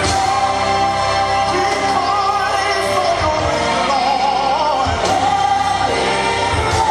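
Gospel worship song: voices singing together over a full band.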